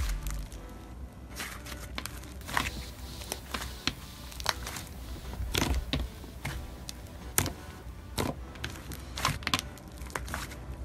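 Slime being pressed and worked by hand, giving irregular sharp crackles and pops, over faint background music.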